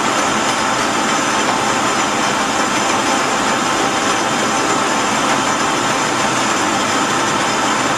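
Metal lathe running, with a steady even hum and faint whine from its motor and spinning chuck.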